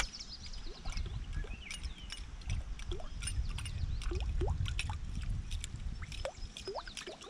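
Musky flap-tail topwater lure being retrieved across the surface: its metal tail blade slaps and ticks as it churns the water, a fast irregular clicking over water gurgle, with a low rumble underneath.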